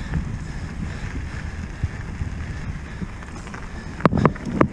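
Wind buffeting the microphone in a steady low rumble, with a quick run of sharp knocks near the end.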